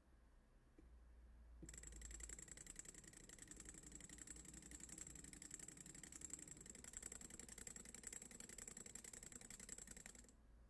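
Homemade free-piston Stirling engine, a candle-heated glass test tube, running: its piston shuttles in the tube with a rapid, even ticking rattle. The ticking starts about two seconds in and stops abruptly about a second before the end.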